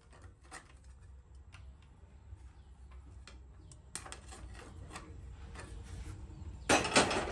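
Light clicks and taps of an abrasive cut-off disc being handled and fitted onto a miter saw's arbor, with a louder short clatter of metal parts near the end.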